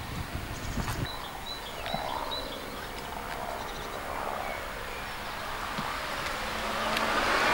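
Outdoor ambience with faint, short bird chirps and low bumps of the camera being handled in the first second. Near the end, a passing car's noise swells up.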